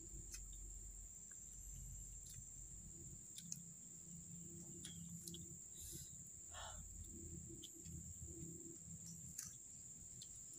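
Faint, steady high-pitched insect drone, such as crickets, with scattered light clicks and crackles and one brief chirp about six and a half seconds in.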